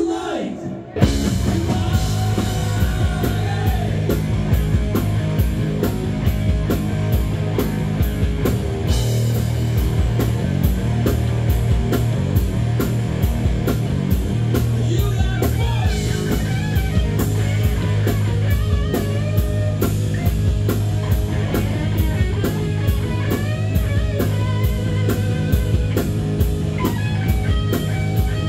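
Live rock band playing electric guitars, bass guitar and drum kit over a steady beat, with a man singing into a microphone from about halfway through. The band kicks in together sharply after a short break about a second in.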